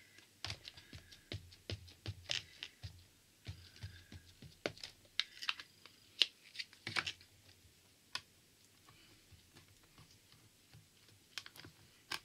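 Irregular light taps and clicks of stamping: a VersaFine Clair ink pad dabbed repeatedly onto a clear stamp held in a stamp positioning tool, then the tool's plastic lid pressed down. The tapping is quick and uneven at first, then thins to a few scattered clicks.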